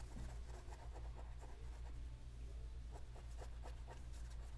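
Glass dip pen tip scratching and rubbing across wet ink swatches on notebook paper: a faint run of short, irregular scratchy strokes, several a second.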